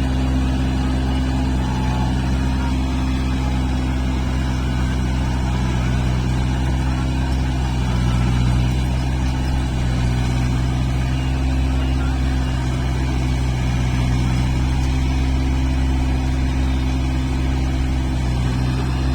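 Kubota rice combine harvester's diesel engine running steadily under load, with a constant low hum.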